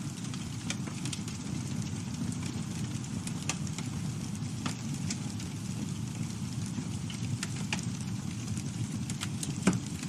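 Campfire burning: a steady low rumble of the flames with scattered crackles and snaps of the wood, and one louder pop near the end.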